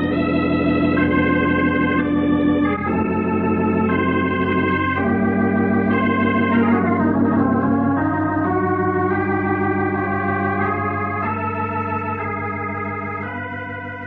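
Organ music bridge between radio-drama scenes, marking the passing of time. It plays sustained chords that change every second or two and fades out near the end.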